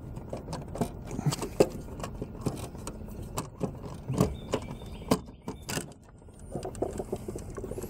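Scattered light clicks, knocks and rattles of hands working an ABS control module (EBTCM) loose and pulling it off its hydraulic brake pump unit.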